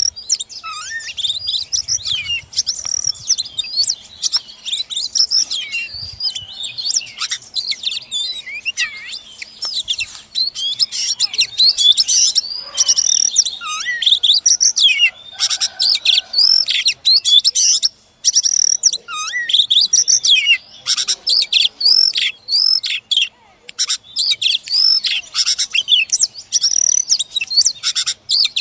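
Oriental magpie-robin singing a continuous, rapid song of varied whistles and chirps, the phrases sweeping up and down in pitch.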